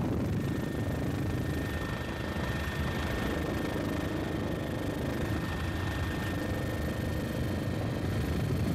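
Steady engine drone with a low rumble and a thin constant whine, unchanging in level throughout.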